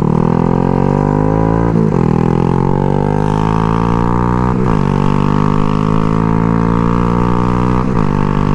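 Cruiser motorcycle engine accelerating up through the gears. Its note climbs steadily and drops at three upshifts, about two, four and a half and eight seconds in. The gearbox is shifting cleanly and the bike is running well on a new spark plug.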